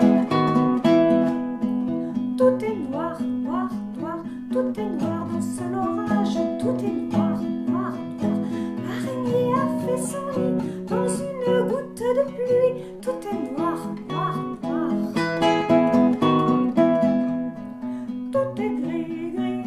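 Music: a strummed acoustic guitar, with a woman's singing voice carrying a wavering melody from a few seconds in until a little past the middle.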